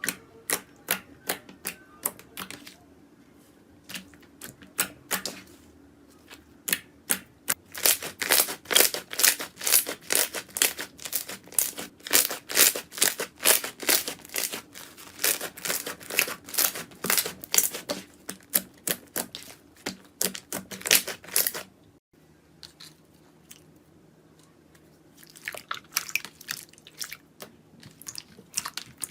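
Slime being pressed and worked by hand, giving rapid sharp crackles and pops. They are densest and loudest in the middle, stop for a few seconds about two thirds through, and start again near the end.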